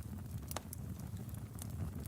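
Log fire burning in a fireplace: a steady low rumble of flames with scattered sharp crackles and pops, the clearest pop about half a second in.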